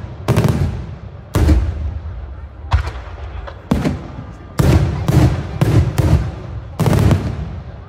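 Daylight fireworks bursting overhead: about ten loud, sharp bangs, each trailing off, coming faster in the second half.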